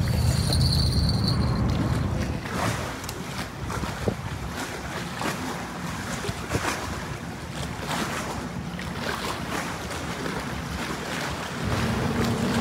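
Wind buffeting the microphone over a steady outdoor wash of wind and water, with the low rumble heaviest in the first couple of seconds.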